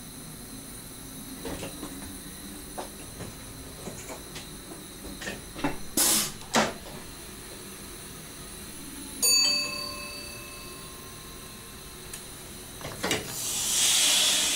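Train cab sounds of a Dutch SGM Sprinter: scattered clicks, two short loud hisses of air about six seconds in, and a single bell-like ding about nine seconds in. Near the end a longer air hiss swells and fades.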